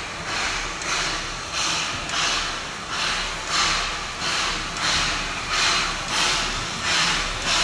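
Narrow-gauge NA class 2-6-2T steam locomotive 14A working toward the listener, its exhaust chuffing in an even beat of about one and a half chuffs a second.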